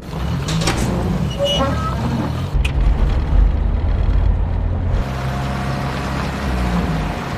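Motor vehicle running, a steady low rumble with road noise. There is a sharp click about two and a half seconds in, and the rumble swells louder for a couple of seconds after it.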